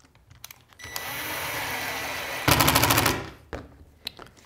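Cordless impact driver driving a 1-inch #8 stainless steel pan head screw through a RAM ball mount base into the kayak's wooden mounting block. A steady motor whine starts about a second in, then turns into a short burst of rapid hammering as the impact mechanism kicks in while the screw seats, and stops suddenly.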